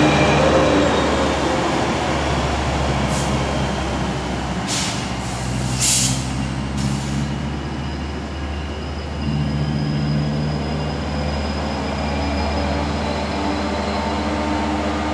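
EMD F125 diesel locomotive's engine running with a steady low drone. There are a few short air hisses between about three and seven seconds in. The engine gets louder about nine seconds in.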